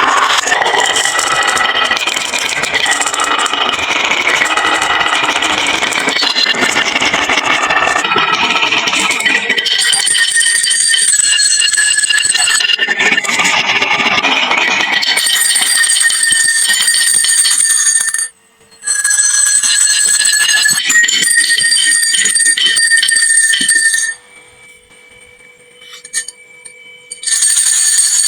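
Many marbles clattering and rattling down a wooden marble-run slope, dense rapid clicks with a ringing tone running through them. The clatter stops for a moment about two-thirds of the way in, then comes back, and near the end it falls to a much quieter ringing.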